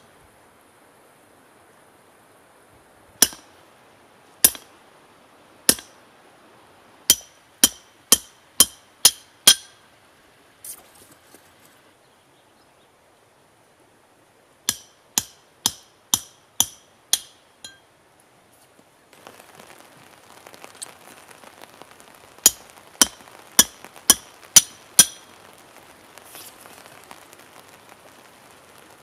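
Hammer blows on a steel punch driven into a hot steel bar on a stone anvil, each one a sharp ringing metallic clink. First come three blows about a second apart, then three runs of six quick blows at about two a second. A faint steady hiss lies under the last run.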